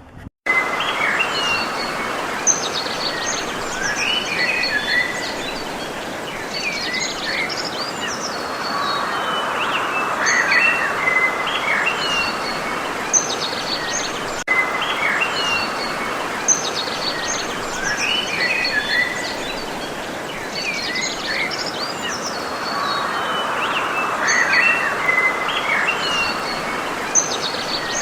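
Small birds chirping and trilling over a steady outdoor hiss, starting abruptly about half a second in, with similar phrases recurring every several seconds.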